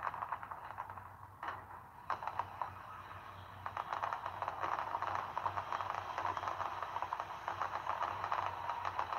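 Fireworks popping and crackling, heard through a TV's small speaker: a few separate pops at first, then dense rapid crackling from about two seconds in, over a low hum.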